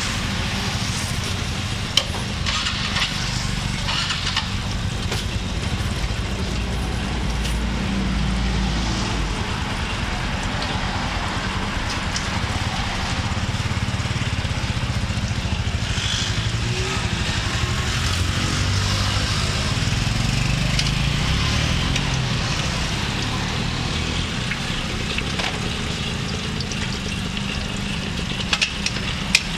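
Battered durian and champedak pieces deep-frying in a wide wok of hot oil: a steady sizzle of bubbling oil over a continuous low rumble, with a few sharp clicks about two seconds in and again near the end.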